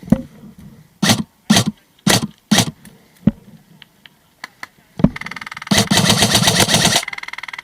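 Airsoft guns firing: four single shots about half a second apart, then a rapid full-auto burst starting about five seconds in that carries on more quietly near the end.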